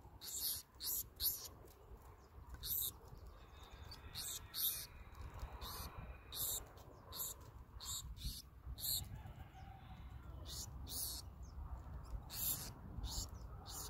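Black-throated sparrows giving many short, very high chip calls, scattered irregularly in quick clusters of two or three, over a faint low rumble.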